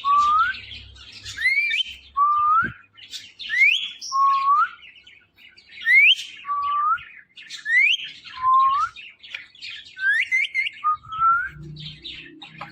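Indian ringneck parrot whistling a repeated two-note phrase: a quick upward whistle followed by a lower, shorter swooping note, about once every two seconds, six times over.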